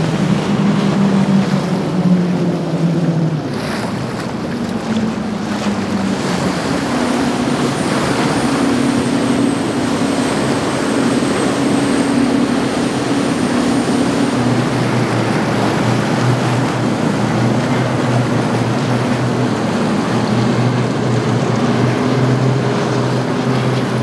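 Motor yachts running past at speed: engine drone over the rush of hull wash and spray, with wind on the microphone. The engine note falls in pitch as the first boat passes in the first few seconds, and a lower, steady drone takes over about halfway through.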